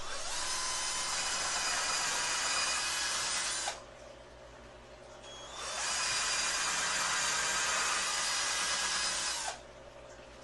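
Cordless drill boring pilot holes into a pine two-by-four, in two runs of about four seconds each with a pause of about two seconds between them, each run starting with a rising whine as the motor spins up.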